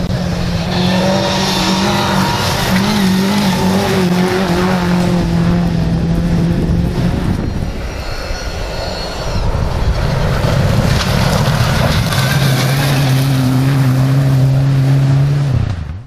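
Rally cars at speed on a gravel stage. First, a Vauxhall Nova 1.4's engine runs hard at high revs for about seven seconds. Then, after a noisier stretch, a Mitsubishi Lancer Evolution IX approaches, its turbocharged four-cylinder held at steady high revs over gravel noise from the tyres, and the sound cuts off suddenly near the end.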